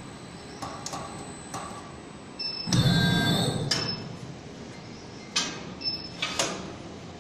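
All-electric servo press brake making a bend stroke about three seconds in: a low rumble with a high whine that swells and fades. Around it are sharp clicks and knocks as the steel channel is handled against the tooling.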